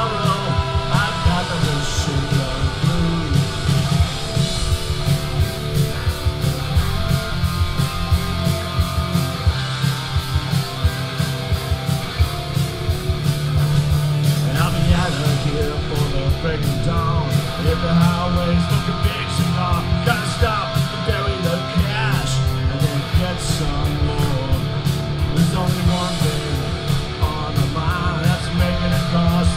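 Live rock band playing: distorted electric guitars, bass guitar and a drum kit, with a lead vocal.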